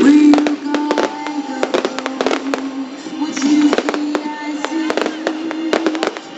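Fireworks display: a rapid string of bangs and crackles from bursting shells, over music playing with the show.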